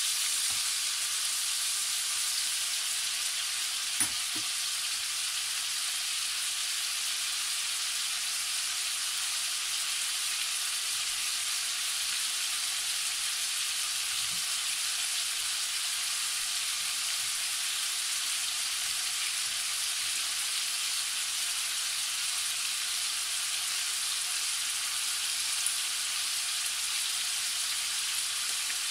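Diced lamb sizzling steadily as it browns in a non-stick frying pan, a wooden spoon stirring it at first. One sharp knock sounds about four seconds in.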